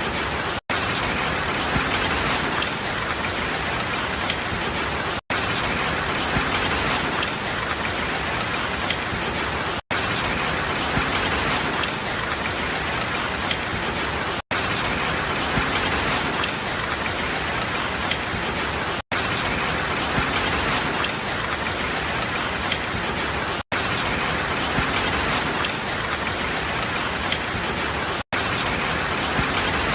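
Steady rain falling, a dense even hiss with many small drop patters. The sound cuts out for an instant about every four and a half seconds.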